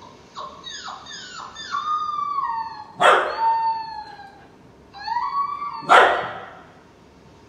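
A puppy howling and whining through television speakers: a run of high, falling whines, then a sharp yelp about three seconds in that draws out into a held howl, a rising whine, and a second, louder yelp near the end that trails off.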